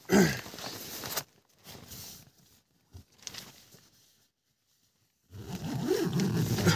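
Tent door zipper being pulled shut in several strokes: a rasping pull in the first second, two short ones around two and three seconds in, and a long one near the end.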